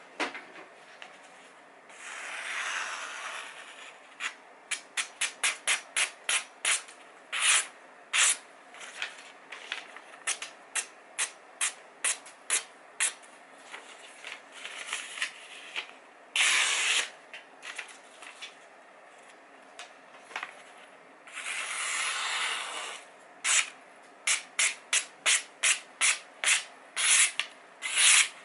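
Kitchen knife slicing through paper in a paper-cutting sharpness test: runs of quick, short slicing strokes, about two to three a second, broken by a few longer stretches of paper rustling.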